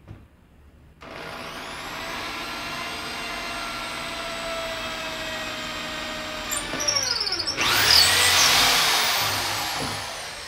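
Electric drill starts about a second in and runs steadily, then bites into the wooden stop block, louder and rougher from about seven and a half seconds, as it bores a hole through it. It winds down with falling pitch near the end as the trigger is released.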